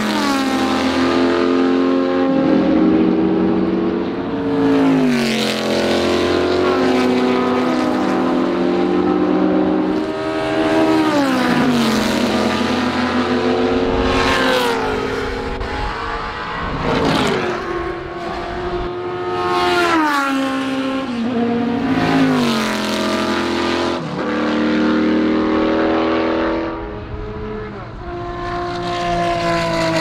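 Vintage race car engines running loud, their pitch climbing and then falling away again and again.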